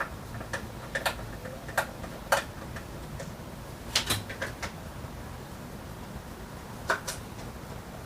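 Irregular sharp clicks and taps of a screwdriver and hard plastic parts being worked at a doorbell's wall mount, with a small cluster about four seconds in.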